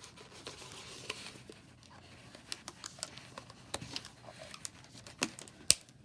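Quiet handling noises from working a rubber balloon stretched over a cardboard tube: scattered small clicks, taps and rubbing, with one sharper click near the end.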